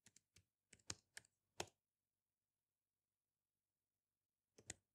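Faint, sparse keystrokes on a laptop keyboard: a few clicks in the first two seconds and one more near the end, with near silence between.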